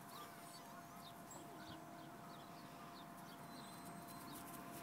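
Near silence with faint, repeated high chirping of small birds.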